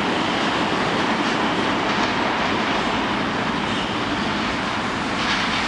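R160A subway train pulling out of an underground station and moving off into the tunnel: a steady rumble and clatter of steel wheels on the rails.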